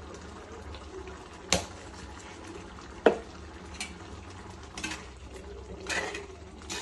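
Chole curry simmering and bubbling in a clay pot over a gas flame, with two sharp knocks about a second and a half apart, then a spoon starting to stir and scrape in the pot near the end.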